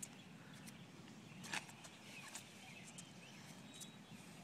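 Quiet outdoor background with faint, short bird chirps and a few soft clicks, the clearest about a second and a half in.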